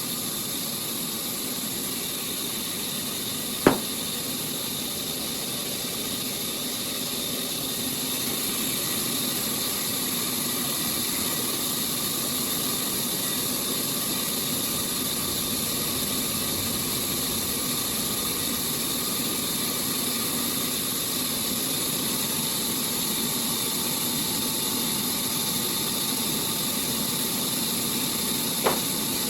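Sawmill machinery running steadily with an even mechanical drone and hiss, broken by a sharp knock a few seconds in and another near the end.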